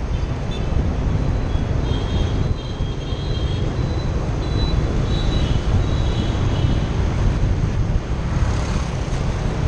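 Steady wind rumble on the microphone and road noise from riding through city traffic. Faint high-pitched tones come and go near the middle.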